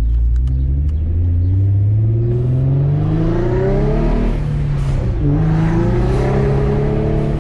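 Twin-turbocharged VQ35DE V6 of an Infiniti G35 coupe, heard from inside the cabin, pulling under acceleration, its note rising for about four seconds. About halfway through the pitch drops at a gear change, and it then climbs again more slowly.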